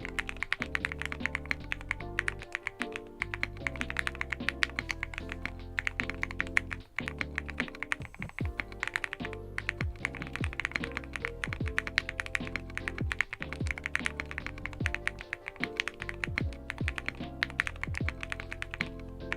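Fast, continuous typing on a QK100 custom mechanical keyboard with lubed Gateron Black Ink V2 linear switches, many keystrokes a second, over background music.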